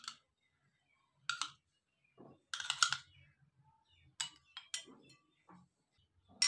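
Spoon clinking and scraping against ceramic bowls as yogurt is spooned from a small dish into a mixing bowl: a scattered string of short clicks and knocks, the loudest cluster between two and three seconds in.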